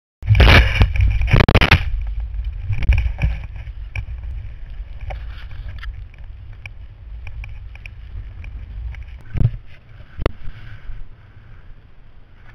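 Skiing through deep powder heard through a GoPro in its housing: a steady low wind rumble with the hiss of snow rushing under the skis, loudest in the first two seconds, and two sharp knocks about a second apart late on.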